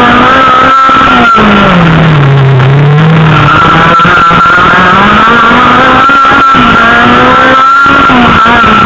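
Autocross car's engine running hard at high revs, heard from inside the car on an overloaded, distorted microphone. About a second and a half in, the revs drop for a couple of seconds, then climb back and hold high, with a few sharp knocks along the way.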